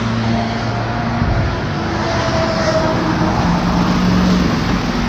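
Highway traffic passing close by at speed, a steady rush of tyre and engine noise.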